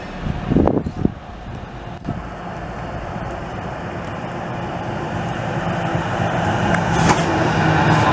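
Articulated city tram running on street track, getting steadily louder as it approaches and draws alongside, with a steady low hum that strengthens near the end. There are a few knocks about a second in and a sharp click about seven seconds in.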